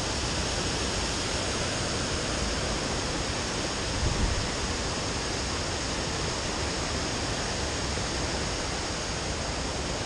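Shallow river water rushing steadily over a stony riffle, with a brief low bump about four seconds in.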